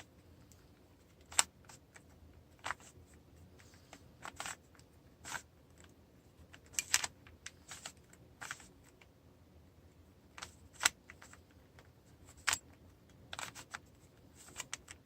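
Stickerless Rubik's cube being scrambled by hand: plastic layers turning and clacking in irregular sharp clicks, some single, some in quick runs of several.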